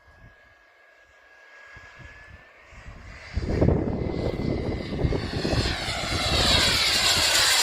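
Model jet's gas turbine in flight, starting as a faint high whine and swelling from about three seconds in to a loud jet rush as the aircraft closes in.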